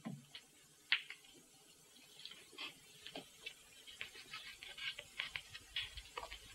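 Faint, sharp clicks of snooker balls knocking together and a cue tip striking a ball, scattered irregularly and coming a little more often in the second half.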